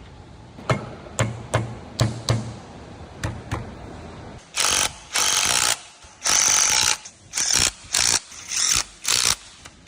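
A hand ratchet clicking in separate strokes while a fastener is worked on a Tesla Model S during a bearing replacement. Then comes a run of short, loud hissing bursts, each half a second to a second long.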